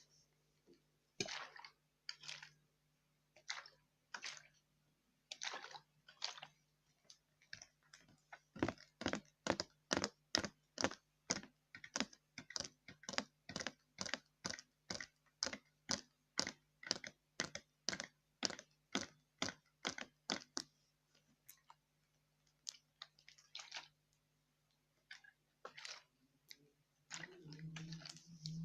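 ASMR trigger sounds: a series of short, crisp strokes close to the microphone, sparse at first, then a fast, regular run of about two to three a second for some twelve seconds before thinning out again. Near the end, a denser, fuller sound begins.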